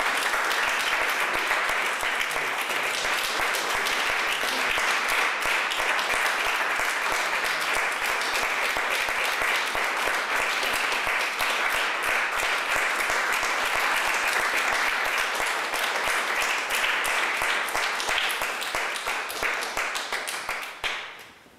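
Audience applauding steadily, a dense patter of many hands clapping, fading out near the end.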